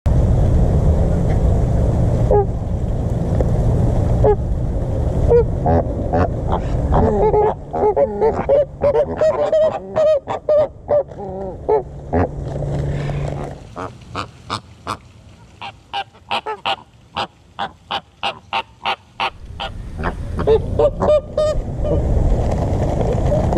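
American flamingos honking, a series of short goose-like calls, followed by a run of quick clicks, about four a second, as their bills nibble pellets from a hand. Low wind rumble on the microphone at the start and near the end.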